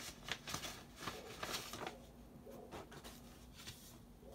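Paper being handled: short rustles and crinkles of a mailed envelope and folded letter, busiest in the first two seconds and fainter after.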